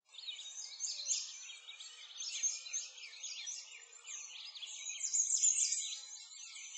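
A dense chorus of small songbirds chirping and twittering at once, many quick overlapping high chirps with no pause.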